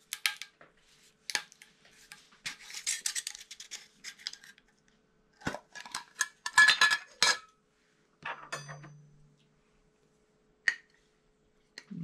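Scattered clinks, taps and clatter of kitchen utensils and glass jars being handled on a table as honey is readied to spoon into a jar of chopped onion. The loudest run of clinks comes a little past halfway.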